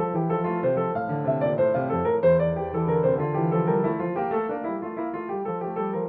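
Background music: piano playing a melody over sustained chords.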